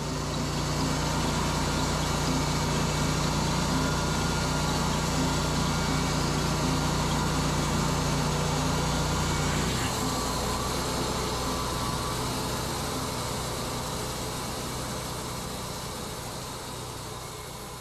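An engine running steadily, which changes to a lower, quieter hum about ten seconds in and fades away toward the end.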